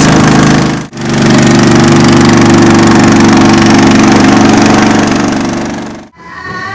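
Rabeta (longtail) boat motor running steadily under way, a loud, even engine note. It drops out for an instant about a second in and fades away near the end, when faint music with singing begins.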